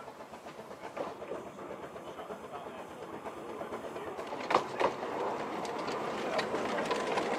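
Small narrow-gauge steam locomotive running slowly past, its steam and running noise getting louder as it nears. Two sharp clacks come about halfway through, followed by a run of lighter clicks.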